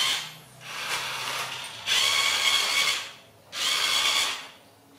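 Remote-control toy car's small electric motor and gears whirring in four bursts of about a second each, with short pauses between, as it is driven in spurts.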